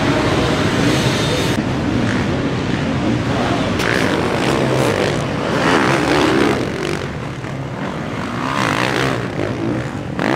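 Motocross bike engines revving hard as the bikes race by, the pitch rising and falling repeatedly with the throttle.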